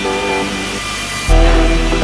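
Background music: a melody of held notes, with a heavy bass and beat coming in about a second and a half in.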